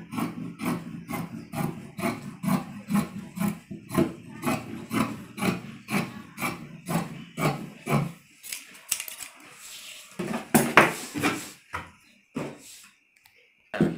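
Large tailor's shears cutting through black dress fabric on a table, an even run of snips at about two a second for the first eight seconds. This is followed by a louder rustle of the cloth being handled, loudest about ten seconds in.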